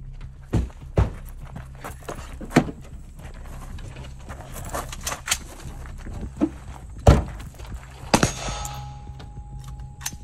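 Several separate knocks and thunks as a shooter gets out of a car and pulls a rifle from the open rear hatch: car door and hatch handling and gear knocking against the vehicle. The loudest knock comes about seven seconds in.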